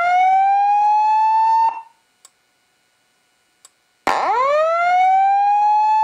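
Simplex 2902-9732 LifeAlarm fire alarm speaker sounding the slow-whoop evacuation tone between voice evacuation messages: a loud sweep rising from low to high pitch over about two seconds. One whoop ends about two seconds in, and after a short gap the next starts about four seconds in.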